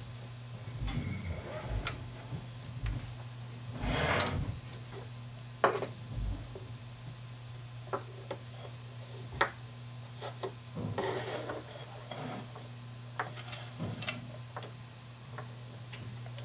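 Curtain track parts being handled on a wooden table: scattered clicks and knocks of plastic and aluminium pieces, with a longer rustle about four seconds in and another about eleven seconds in, over a steady low hum.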